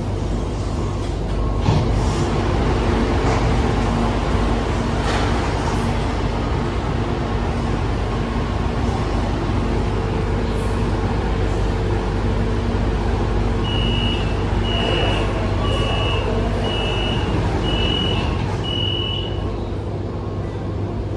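Shanghai Metro 13A01 train running, a steady rumble and hum with a knock about two seconds in. Past the middle come six high beeps about a second apart.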